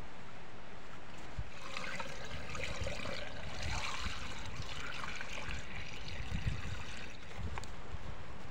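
Water poured from a bucket into the open priming port of an electric surface centrifugal pump, splashing and trickling as it fills the pump casing to prime it. The pouring starts about a second and a half in and stops about a second and a half before the end, over a low rumble of wind on the microphone.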